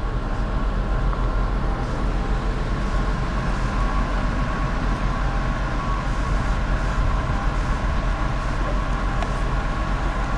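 An engine running steadily nearby: a constant low rumble with a faint steady whine above it.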